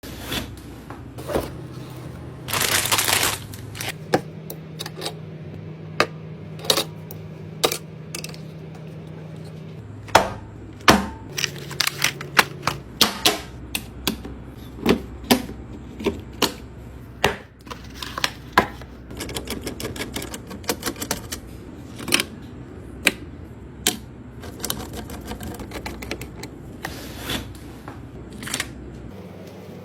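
Irregular clicks, taps and knocks of computer hardware being handled and fitted together during a custom PC build, with a brief rustling burst about three seconds in.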